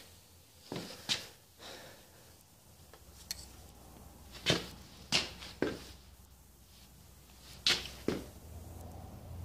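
Hands working a motorcycle's throttle grip and bar-end throttle lock: a series of short, sharp clicks and knocks from handling the parts, about seven of them spread through.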